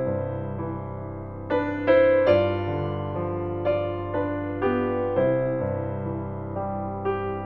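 Slow, gentle piano music as a slideshow soundtrack: notes and chords struck about every half second, each ringing and fading before the next.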